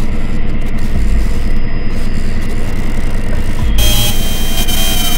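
Loud, dense, low rumbling drone with two deep throbs, one about a second in and one near the end; a hiss carrying steady high tones cuts in about four seconds in.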